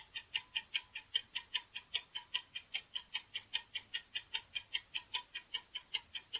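Countdown-timer ticking sound effect: a steady, fast clock tick at about six ticks a second, marking the time left to choose an answer.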